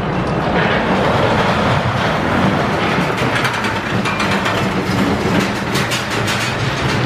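E&F Miler steel roller coaster train running over its track close by, its wheels rumbling steadily. From about three seconds in the running noise turns into a fast, dense clatter of clicks that lasts about three seconds.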